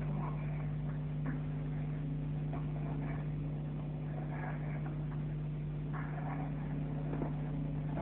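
A steady low hum, with faint, indistinct voices coming and going.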